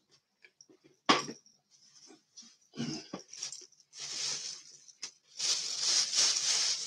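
Objects being handled on a table: a sharp knock about a second in, then several spells of rustling and crinkling, the longest near the end.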